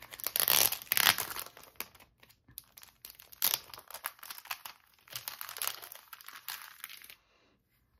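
Thin clear plastic sleeve crinkling as it is peeled off a photocard in a rigid clear card holder. The crinkling is loudest in the first second, continues as scattered crackles, and stops about seven seconds in.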